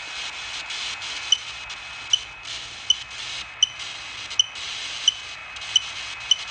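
A smartphone ghost-detector app playing hissing static that briefly cuts out every so often, with a short high electronic beep about every three-quarters of a second.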